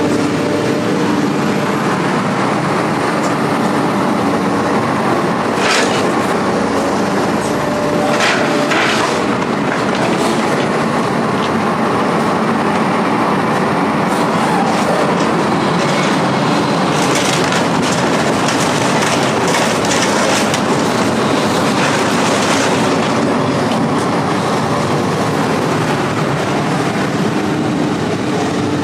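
A vehicle on the move: steady engine hum and road noise with repeated rattling and clattering.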